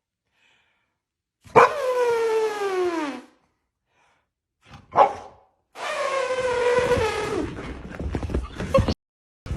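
A dog giving two long, drawn-out howling calls that fall in pitch, with a short yelp between them. The first starts about a second and a half in.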